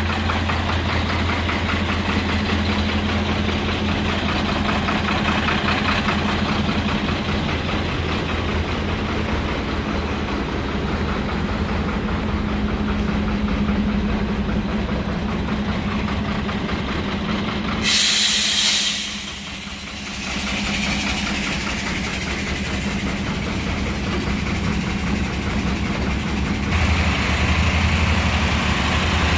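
Mercedes-Benz Atego 2628 mixer truck's diesel engine idling steadily. About two-thirds of the way through, a short, loud hiss of released compressed air comes from the truck's air system.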